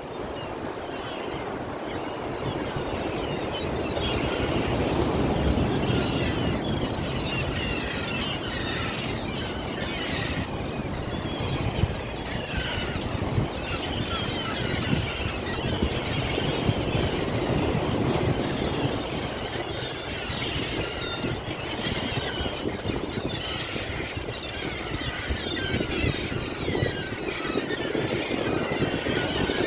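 Sea waves washing ashore, a continuous rushing that swells and falls back every several seconds.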